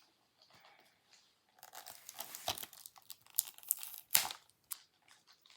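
Plastic shrink-wrap being torn and crinkled off a DVD case: crackling with sharp snaps, starting about a second and a half in and loudest near the middle, dying away near the end.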